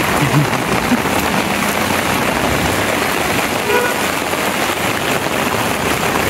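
Heavy rain pouring down onto a wet, waterlogged street: a steady, dense hiss of rain.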